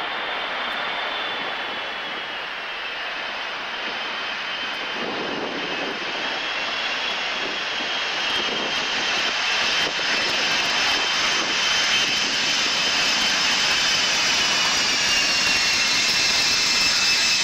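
Four-engined Boeing 707 jet airliner landing and rolling out: a steady rush of jet noise with a high engine whine that slowly slides lower in pitch, getting louder through the second half as the aircraft comes past.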